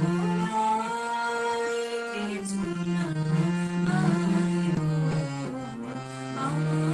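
Music from a recorded musical performance: a melody of held notes stepping up and down in pitch over a sustained lower part.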